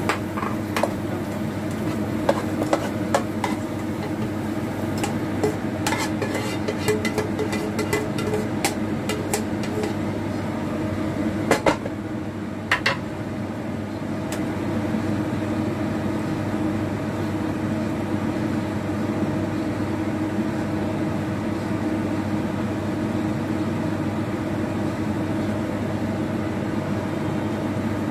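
A cooking utensil clinking and scraping against a nonstick frying pan as cooked greens are lifted out, a run of sharp clicks and knocks that stops about halfway through. Under it runs a steady mechanical hum.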